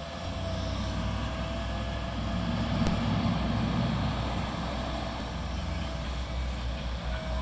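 Engines of heavy construction machinery running steadily, a low diesel rumble that swells for a second or so around three seconds in.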